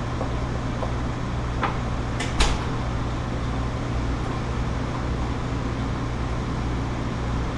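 Steady hum of a commercial kitchen's exhaust hood and ventilation fans, with a few sharp knocks around two seconds in, the loudest a single clack like a utensil set down on the counter.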